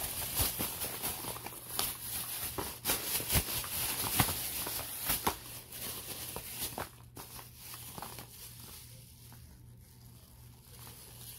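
Thin plastic shopping bag rustling and crinkling as items are pulled out and handled, with scattered clicks and knocks; the handling noise is busiest in the first seven seconds and quieter after.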